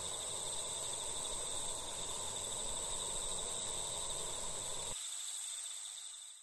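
Evening insect chorus, a steady high trilling at a couple of pitches, over a low outdoor rumble. The low rumble cuts off about five seconds in, and the trilling fades out a second later.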